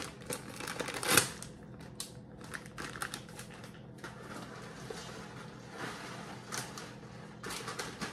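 Plastic bag of shredded cheddar cheese crinkling and crackling as it is torn open and shaken out. The loudest, sharpest crackle comes about a second in.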